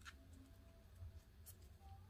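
Near silence over a low steady hum, with two brief faint rustles of a paracord bracelet being handled: one at the start and one about a second and a half in.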